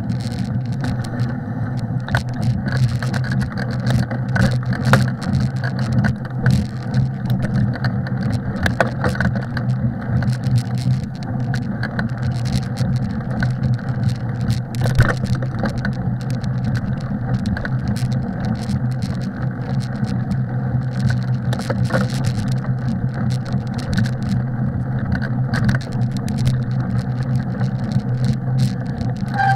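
Bicycle riding along a packed snow trail: a steady low drone with frequent clicks and rattles throughout.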